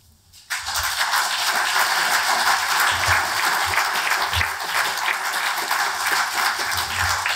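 Audience applauding, starting about half a second in with steady, dense clapping.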